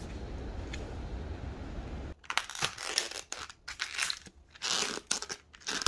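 Steady low rumble of a railway station platform, then, about two seconds in, sharp irregular crackling and crinkling as a clear plastic takeaway container lid is prised open over paper wrapping.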